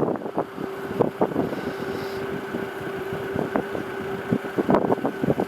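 Moderate wind buffeting the microphone with irregular short knocks, over a steady low hum that starts just after the beginning.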